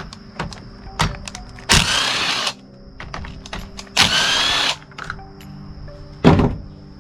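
Cordless drill-driver running in two short bursts of under a second each, its whine rising slightly, as it backs screws out of a string trimmer's handle housing. Small clicks of handled parts between, and a thump about six seconds in.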